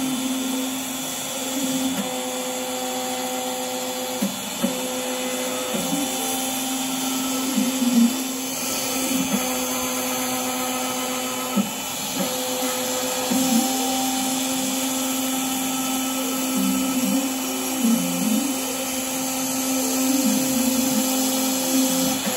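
A CNC router's spindle running with a steady high whine while a fine bit carves circular inlay cuts into a block of wood. The tone wavers briefly and irregularly as the cutter moves through the wood.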